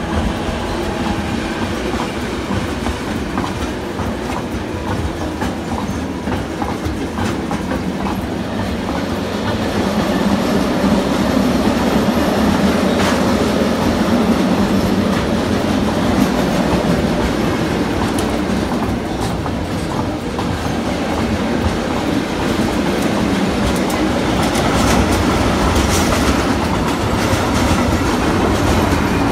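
Freight train of car-transporter and hopper wagons rolling past close by: a steady rolling noise with quick clicks of the wheels over the rail joints, louder from about ten seconds in.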